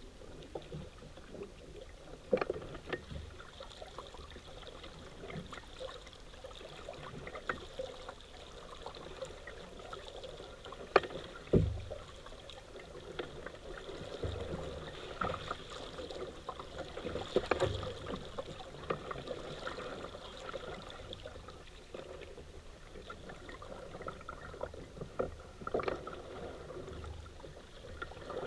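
Paddling a small boat on a river: water splashing and trickling around the paddle and hull, with scattered sharp knocks.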